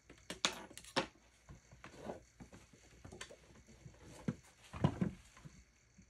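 Handling noises at a potter's wheel: an irregular run of light taps and clicks of hands and tools against the wheel, bat and splash pan. The loudest knocks come about half a second in, about a second in, and a close pair near the end.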